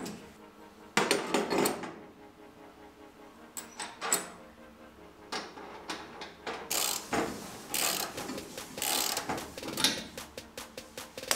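Metal clinks and knocks as a bolt and washers are fitted through a shock absorber's top mount, then a socket ratchet clicking rapidly near the end as the bolt is tightened.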